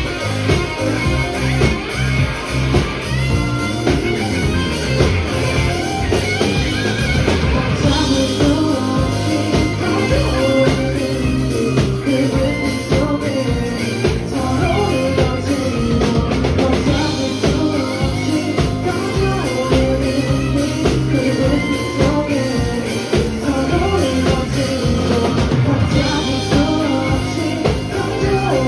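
A rock band playing live: steady drums, guitar and sung vocals.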